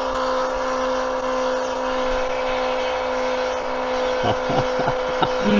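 Mellif battery-powered electric oil change pump running steadily, its motor whining at a constant pitch as it pumps transfer case fluid through the hoses.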